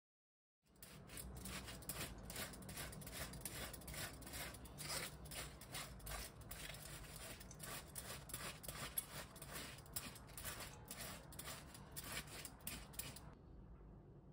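A wedge of cabbage being shredded by hand into a steel bowl: a quick run of rasping strokes, about two or three a second, that stops about a second before the end.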